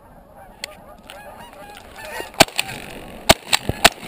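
A flock of Canada geese honking, the calls growing thicker from about half a second in, with shotgun blasts over them: one about two and a half seconds in, then three more in quick succession near the end.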